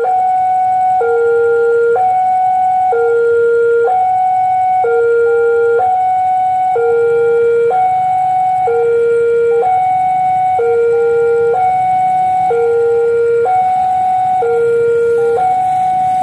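Railway level-crossing warning alarm sounding: an electronic two-tone signal alternating between a lower and a higher tone about once a second, the warning that a train is approaching and the crossing is closed.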